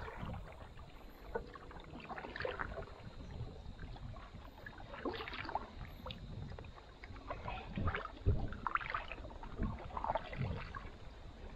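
Wooden canoe paddle dipping and pulling through the water, with splashes and drips every couple of seconds over a steady low rumble.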